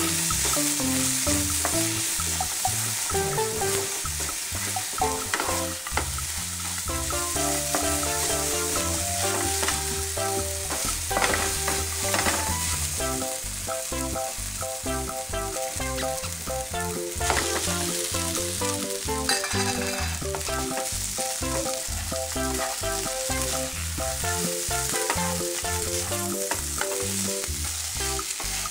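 Food sizzling in hot oil in a pan as it is stirred, with a steady hiss, under instrumental background music.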